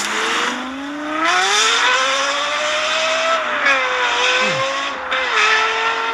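A car engine accelerating hard, its pitch climbing for about three seconds and then dropping back twice.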